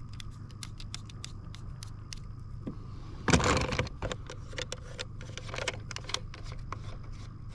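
Plastic cable connectors and a fishfinder unit being handled by hand: a run of small clicks and rattles, with one louder clatter a little over three seconds in and a smaller one near the end, over a steady low hum.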